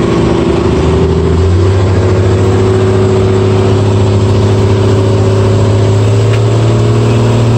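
Inboard engine of an outrigger passenger boat (bangka), heard on board, running loud; it speeds up about a second and a half in as the boat gets under way, then runs steadily.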